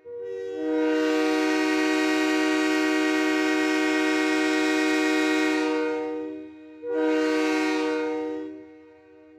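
Train horn blowing a long blast of about six seconds, then a shorter second blast that fades away. Each blast is a steady chord of several notes, with the notes coming in one after another at the start of the first.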